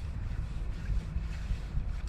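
Wind buffeting the microphone: an uneven low rumble that rises and falls without a break.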